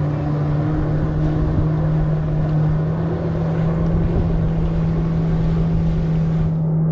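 Personal watercraft engine running steadily at high revs, a steady drone of one held pitch, as it pumps water up the hose to drive a flyboard.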